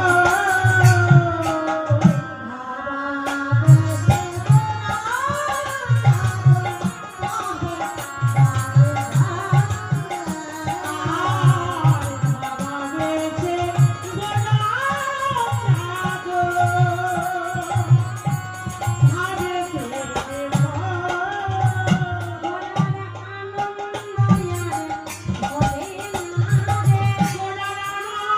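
Bengali padavali kirtan, a solo voice singing a sliding, ornamented devotional melody over repeated low hand-drum strokes in steady rhythmic groups, heard through a stage monitor speaker during a sound check.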